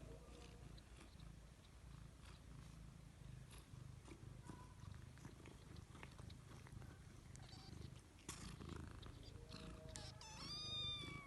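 Mother cat purring faintly and steadily while nursing her newborn kittens, with a single high, rising mew near the end.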